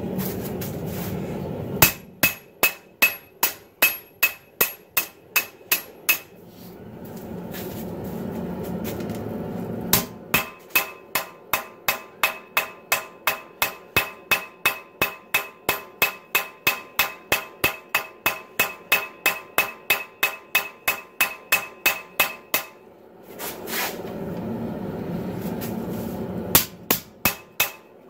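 Hand hammer striking red-hot 80CrV2 knife steel on a 66 lb cast steel anvil, drawing out the blade. The blows come in three runs of about four a second, each blow ringing at the same high pitch, with the longest run in the middle. A steady rushing noise fills the pauses between runs.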